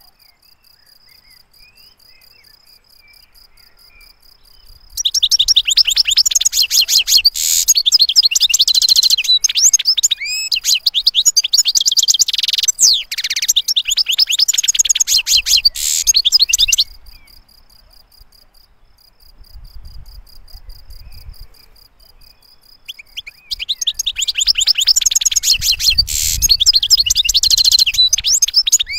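European goldfinch singing: a long bout of rapid, high twittering song starts about five seconds in and runs for some twelve seconds. A second bout begins in the last third. In the pause between them only a faint steady, high pulsing tone remains.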